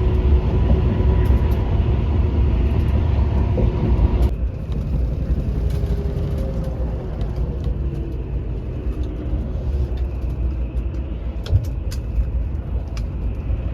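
Steady low rumble of a moving road vehicle, with an abrupt change in the sound about four seconds in.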